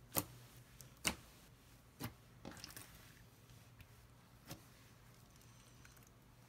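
Slime being handled, giving a few sharp clicks and pops spaced about a second apart, with a small cluster of quicker pops in the middle.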